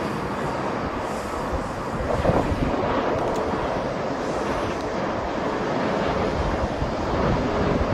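Airbus A330 jet airliner landing: a steady noisy rumble of its engines and airflow, mixed with wind buffeting the microphone.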